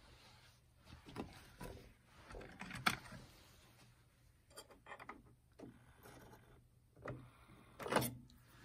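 Irregular knocks, clicks and clunks of plastic and metal parts being handled inside an opened stereo's tape/CD mechanism, about seven of them, with the loudest near the end.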